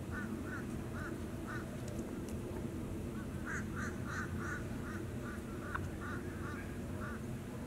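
Turkeys calling in runs of short, evenly spaced yelping notes, about three a second, louder from about three and a half seconds in, during a fight between two toms, over a steady low rumble.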